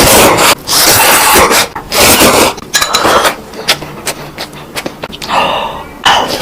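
Crunchy food being bitten and chewed close to the microphone: loud, irregular crunches with sharp crackling clicks in between.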